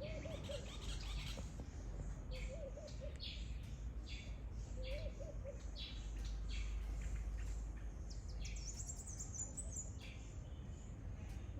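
Several small birds chirping and singing, with short chirps throughout and a lower warbling call repeated three times in the first half. A high, rising trill comes about eight seconds in.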